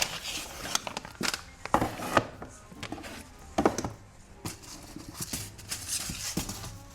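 Food packages and containers being taken off pantry shelves, handled and set down: irregular knocks, rustles and crinkles of packaging, over background music.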